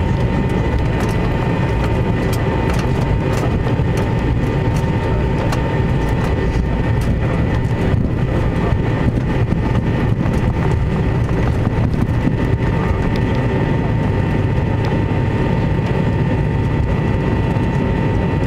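Cabin noise inside a McDonnell Douglas airliner rolling on the ground just after landing: a steady, heavy rumble from the wheels and airframe with the engines' steady whine over it, and frequent small knocks and rattles.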